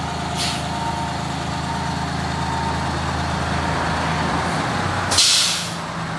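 Fire pumper's diesel engine running steadily as it backs up, with a short air hiss about half a second in and a louder air-brake hiss near the end. A backup alarm beeps faintly under the engine.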